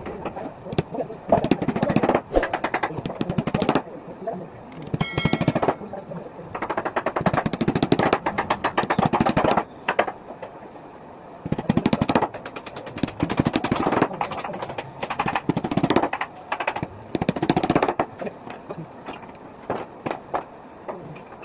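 Hammer tapping small nails into thin strips on a laminated particle-board frame, in quick runs of light strikes with short pauses between.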